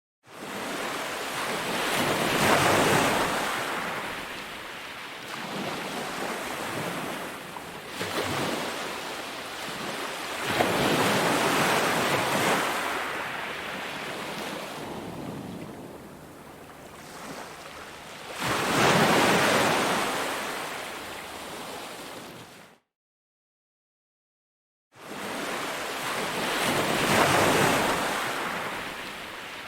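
Ocean surf on a beach: waves swell, break and wash back, one every eight seconds or so. About three-quarters of the way through, the sound drops out to dead silence for about two seconds, then the surf resumes.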